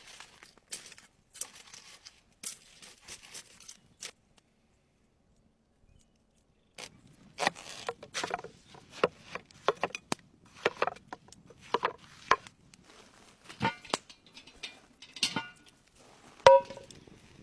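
Irregular taps, knocks and rustling of hands at work preparing food, with a pause of near silence a few seconds in; the knocks are denser and sharper in the second half, the loudest near the end.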